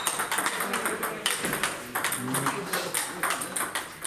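Table tennis ball being hit back and forth in a warm-up rally: a quick run of sharp clicks as the ball strikes the rackets and the table.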